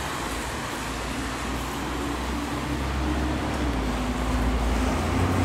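Road traffic passing on a wet street: a steady wash of tyre and engine noise, with a low rumble building toward the end as a heavier vehicle draws closer.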